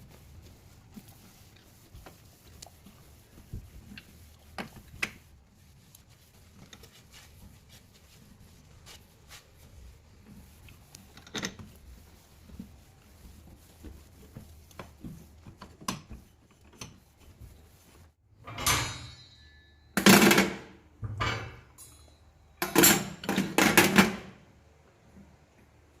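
Kitchen cleaning handling sounds: scattered light clicks and knocks, then several loud, short scrubbing or rubbing noises from about 18 seconds in.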